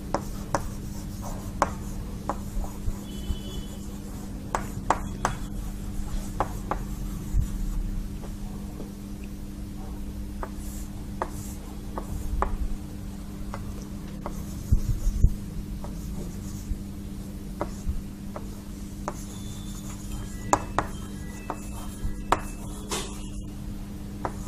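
Chalk writing on a chalkboard: irregular taps and short scratchy strokes as letters are written, over a steady low hum.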